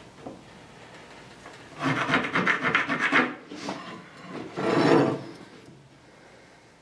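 Metal speed square scraped across the rough face of an OSB sheet, twice: a longer scrape about two seconds in and a shorter one about five seconds in.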